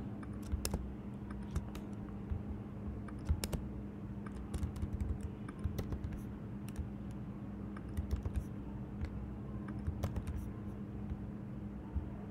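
Typing on a computer keyboard: irregular key clicks in short runs, over a steady low electrical hum.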